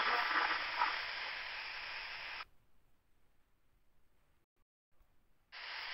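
Steady background hiss of the recording's microphone that cuts off abruptly about two and a half seconds in to dead silence for about three seconds, then comes back just before the end.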